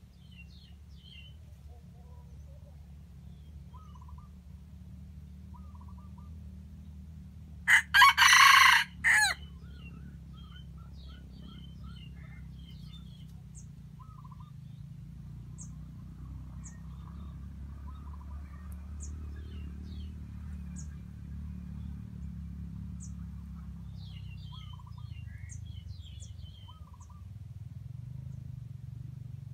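A jungle-fowl rooster crows once, loud and short, about eight seconds in. Faint chirps of small birds and a steady low hum run underneath.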